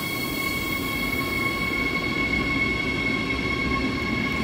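Go-Ahead Bayern electric multiple unit pulling slowly out of the platform: a steady electric whine over the rumble of its wheels on the track, with a high hiss that fades in the first two seconds.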